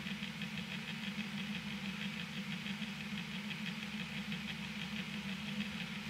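Small motor running with a steady hum and a fast, even pulse; one sharp click at the very end.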